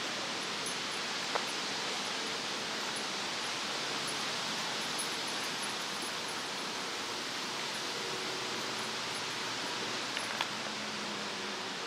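Steady, even rushing hiss of open-air ambience, with a faint click about a second and a half in and a couple more near the end.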